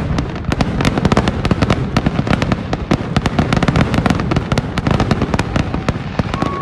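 Fireworks display at full barrage: a dense, rapid run of bangs and crackles, many per second, over a continuous low rumble.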